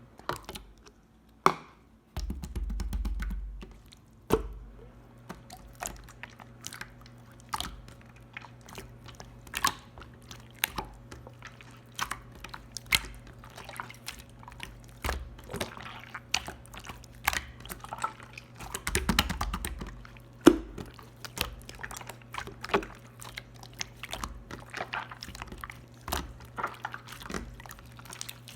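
Clear slime being played with by hand, giving many small sharp pops and clicks in an irregular run, a few each second. A longer dull low rumble comes a few seconds in and again about two-thirds through.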